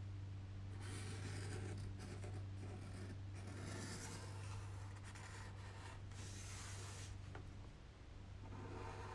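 A pen scratching on paper as it traces around the outline of a hand, in long strokes broken by short pauses, from about a second in until about seven seconds, over a steady low hum.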